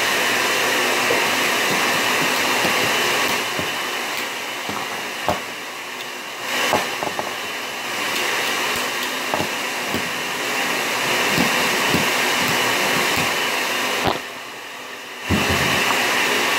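A steady, loud whooshing hiss, with scattered sharp clicks and clacks and a couple of louder knocks as die-cast toy cars are handled, knocked together and bumped against the tabletop and microphone.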